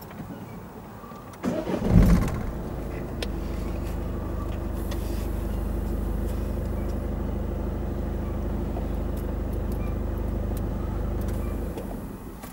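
A vehicle engine starts with a short loud burst about two seconds in, then idles steadily before fading out near the end.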